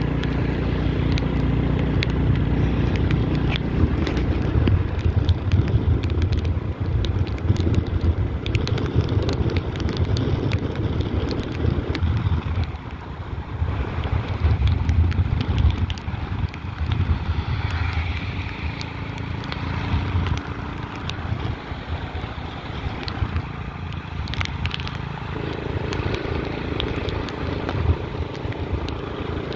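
Motorbike engine running while riding, under wind buffeting the microphone, with frequent small clicks and crackles.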